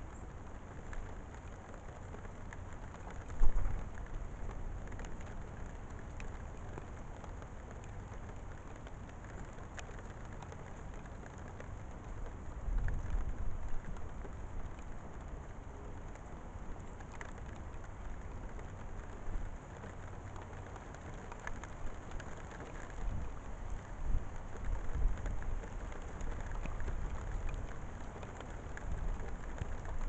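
Steady rain falling, with scattered small ticks and uneven low rumbles. There is a sharp knock about three and a half seconds in.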